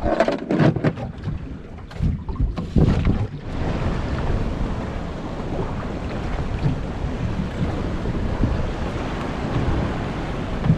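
Boat running across open water: a steady rush of wind and water with wind buffeting the microphone, after a few knocks and handling bumps in the first three seconds or so.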